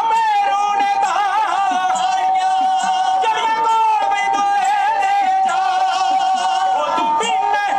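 Punjabi dhadi folk singing of a vaar: male voices singing in long, wavering melismatic lines, with a sarangi bowing a held melody line beneath them.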